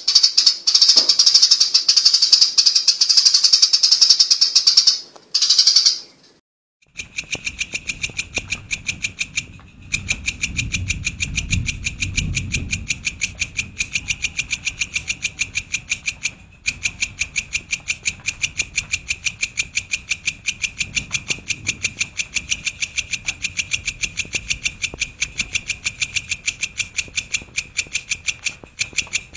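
Songbird song from a bird-training (masteran) recording. It opens with about six seconds of dense, varied high song, then a short pause, then a fast string of identical sharp high notes repeated several times a second.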